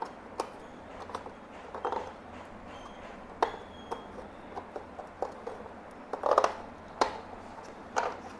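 Irregular plastic clicks and knocks from an old portable cassette recorder's case being handled on a table, about ten in all, with a busier cluster about six seconds in as the unit is shifted and slid across the tabletop.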